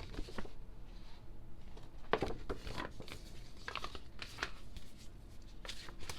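Paper and card album inserts being handled and shuffled: light rustling and scattered soft taps, the loudest about two seconds in.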